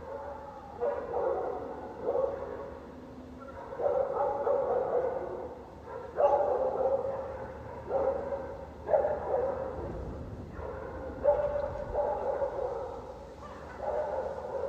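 Dogs barking, a bark or a quick cluster of barks every second or so, with no let-up.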